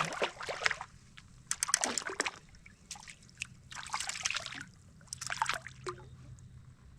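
Water splashing and sloshing in irregular short bursts as a hooked fish is fought close beside a kayak.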